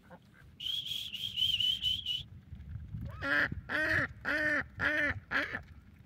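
Domestic ducks calling: a quick run of high, thin notes, then five loud quacks about half a second apart.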